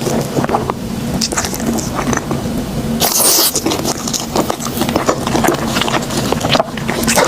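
Close-miked eating sounds: bread being chewed with wet mouth clicks and smacks. A brief, louder crackly burst comes about three seconds in, over a faint steady low hum.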